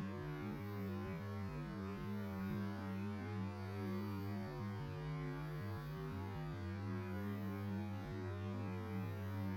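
Low, wavering drone of tones that shift in pitch every second or so, the sound of a recording slowed to about a sixth of its speed.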